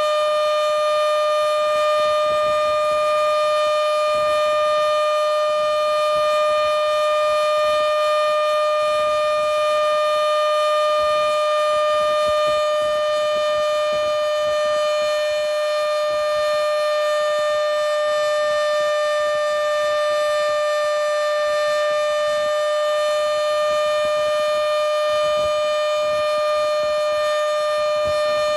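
Modified Federal Signal Model 7B outdoor warning siren sounding a steady alert signal at close range: one loud, held tone with overtones, its pitch wavering slightly.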